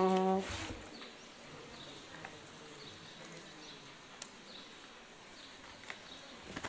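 The last held note of a sung Alleluia ends about half a second in. After it comes quiet open-air ambience with faint bird chirps and a few soft clicks as sheets of paper are handled at the lectern.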